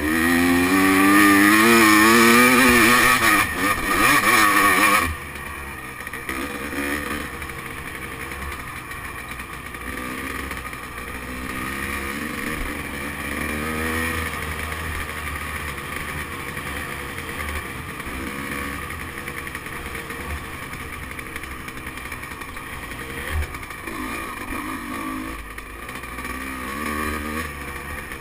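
Dirt bike engine running under way. For the first five seconds it revs loudly with a wavering pitch and a strong hiss over it, then drops to a quieter, lower-revving run whose pitch rises and falls with the throttle.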